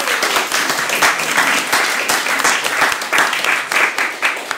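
Audience applauding: many people clapping together, dense and steady, easing off slightly near the end.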